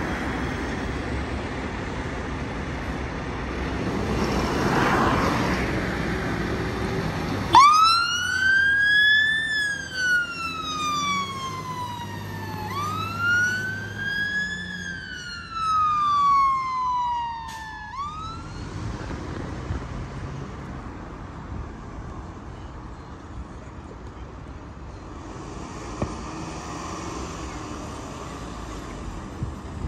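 Fire engine's electronic siren sounding two slow wails, each rising then falling away, then cutting off suddenly. Vehicles pass before and after it.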